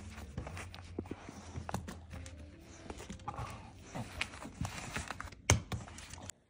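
A dog rummaging in a hanging fabric advent calendar pocket and tugging out a small wrapped treat: irregular rustling with many small clicks and taps, and one sharp knock about five and a half seconds in.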